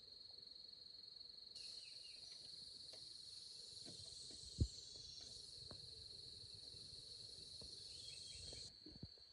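A steady, faint, high-pitched insect drone, with a second, wider insect buzz that starts about a second and a half in and cuts off near the end. Small scattered clicks, and one dull knock about halfway through.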